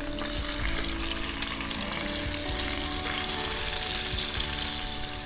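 Pieces of salted fish frying in hot oil with chopped aromatics in a nonstick pan, sizzling steadily.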